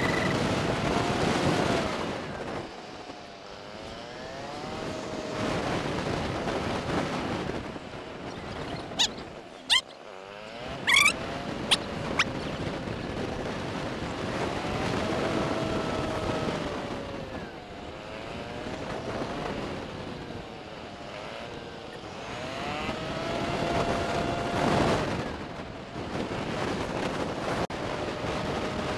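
Motorcycle engine running on the move, its pitch rising and falling several times with the throttle, over wind rushing past the microphone. About nine to twelve seconds in comes a cluster of short sharp sounds, one a quick rising tone, louder than the engine.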